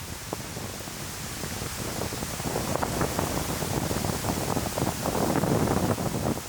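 Strong wind buffeting the microphone, a rushing, fluttering noise that gusts louder about halfway through.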